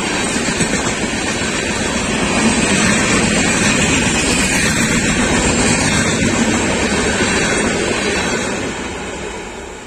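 LHB passenger coaches of an express train rolling past at speed, their wheels on the rails making a loud, steady rushing noise. It begins to fade about eight and a half seconds in as the last coaches go by.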